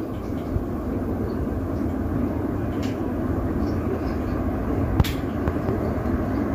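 Two KDK 60-inch industrial ceiling fans running, a steady whoosh of moving air with a low hum and rumble. A sharp click comes about five seconds in, with a fainter one a couple of seconds earlier.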